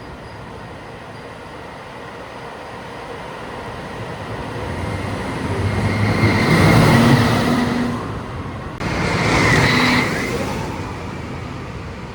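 Roller-coaster train passing by: a rumble of steel wheels on track that builds, peaks twice about seven and nine and a half seconds in, then fades away.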